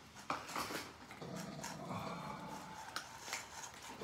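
Several cats eating mixed wet and dry food from plastic bowls on a tile floor: scattered clicks of chewing and bowl contact over a low sound that pulses about every half second.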